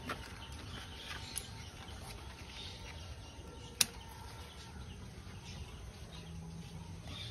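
Scissors snipping through betel leaf stalks: one sharp snip a little under four seconds in and a few fainter clicks, over a low steady background noise.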